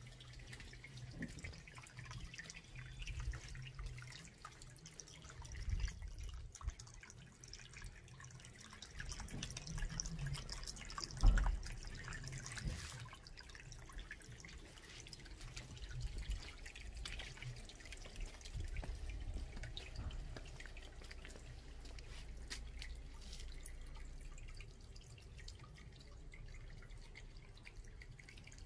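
Water dripping and trickling into a garden goldfish pond, faint and continuous. There is a low rumble that comes and goes, and one sharp thump about a third of the way through.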